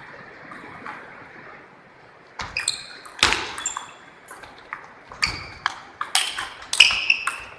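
Large-ball table tennis rally: the ball clicks back and forth off paddles and table in a quick series of hits that starts a little over two seconds in, some hits with a short ringing ping.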